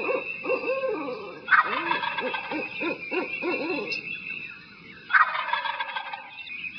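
Tom turkey gobbling twice, about a second and a half in and again about five seconds in, amid a run of repeated lower calling notes.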